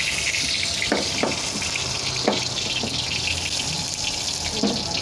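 Knife slicing an onion on a wooden chopping board: a few soft knocks spread through a few seconds, over a steady hiss from the stove.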